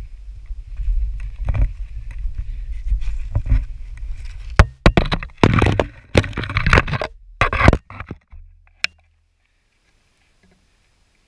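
Low rumble of wind and handling on a camera's microphone, then a run of loud scrapes and knocks as the camera housing rubs and bumps against a granite boulder, ending in a single click about nine seconds in.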